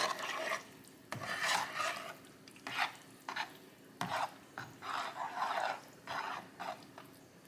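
Wire potato masher working through wet, soupy cornbread dressing in a roasting pan: a series of irregular squelching mashing strokes.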